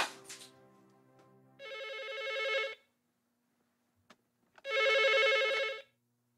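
Telephone ringing twice, each ring about a second long with a fast trill: an incoming call that is answered right after.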